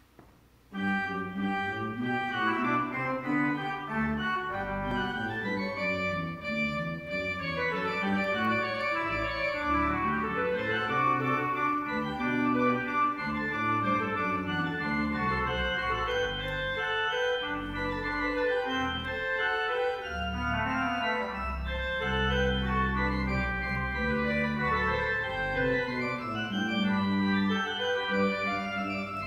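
Church organ playing sustained chords over a low bass line, coming in about a second in.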